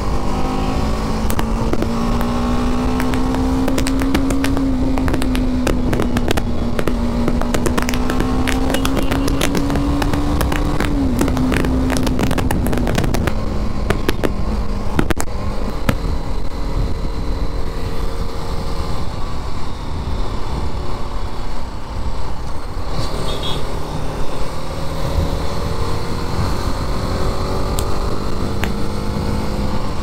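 BMW G 310 GS single-cylinder engine running under way, heard from the rider's seat, with wind rumble on the microphone. The engine note climbs slowly for about ten seconds, drops suddenly as the throttle is eased or a gear changes, and then runs lower and steadier. A run of sharp crackles comes in the middle.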